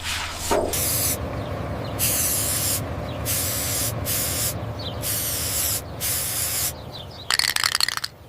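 Hissing spray bursts, about five, each under a second with short gaps between, over a low steady hum. A quick rattle of clicks comes near the end.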